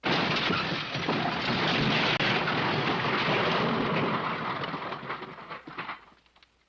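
The MGM 'Elephant Smash' cartoon crash sound effect, in an edited version: a long, dense crash that starts suddenly, holds for about four seconds, then breaks into scattered clatters and dies away.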